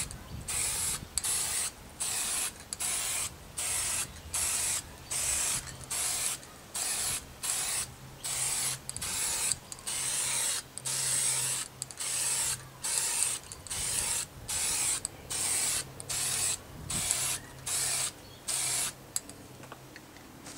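Aerosol spray-paint can spraying in short, rapid spurts, about two a second, a hiss that cuts on and off as the nozzle is pressed and released; the can is running low on paint. The spraying stops near the end.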